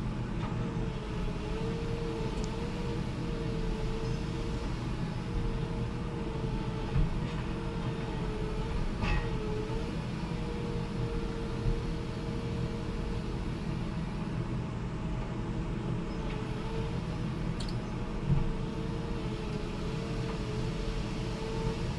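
A heavy forestry machine's engine runs steadily under load, with a tone that repeatedly dips and recovers. A few short knocks occur, the clearest about a third of the way in and again near the end.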